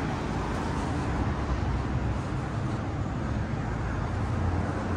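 Steady city street traffic noise: cars passing on a multi-lane road, with a low rumble of engines and tyres.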